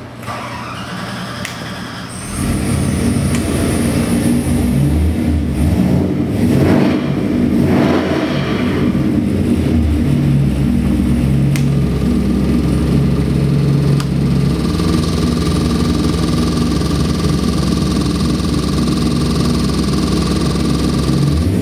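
Carbureted 327-cubic-inch Chevy LS V8 with a hydraulic roller cam running on an engine dyno. It comes up about two seconds in, surges a few times, then settles to a steady idle around 1,000 to 1,200 rpm.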